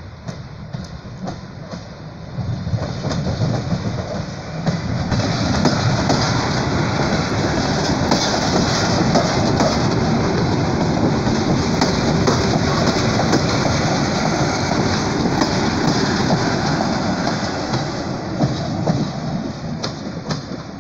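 A train passing close by on the rails: the rolling noise swells about two and a half seconds in as it arrives, holds steady with wheel clatter while the cars go by, and falls away near the end.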